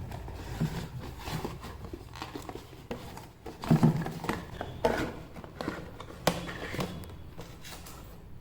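Camera packaging being handled and opened by hand: irregular clicks, knocks and rustles of hard plastic, the sharpest knocks a little past the middle.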